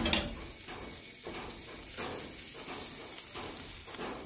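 Garlic fried in butter, with green chilli and parsley, sizzling as it is poured from the hot pan over a plate of fried shrimp. A short knock right at the start.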